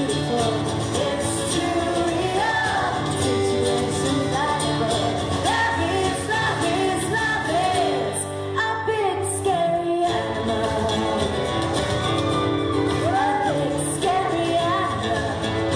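Live acoustic pop performance: a woman sings the lead melody over acoustic accompaniment, heard in a large hall.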